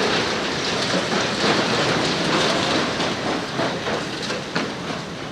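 Rubble and debris pouring down from a hospital building under demolition: a steady rushing clatter that slowly fades, with a few sharper knocks about four seconds in.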